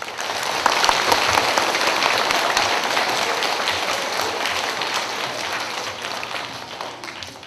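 A crowd of schoolchildren applauding, many hands clapping at once. The applause swells within the first second, then slowly dies away toward the end.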